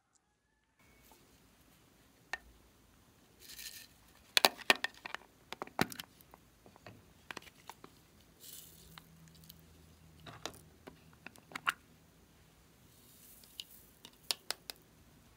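Small plastic glitter containers clicking and tapping as they are handled and opened, with three short hissy rattles of glitter being shaken out onto slime.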